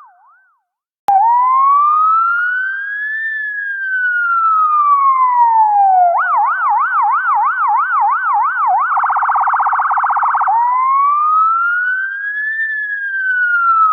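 US-style electronic emergency-vehicle siren, as used on ambulances, starting about a second in. It runs through its modes: a slow wail rising and falling, then a fast yelp of about three warbles a second, then a very rapid stuttering tone, and back to the slow wail.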